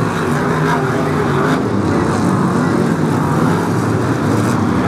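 Many Brisca F1 stock cars' V8 engines running together as the pack races past, a loud, steady, unbroken din.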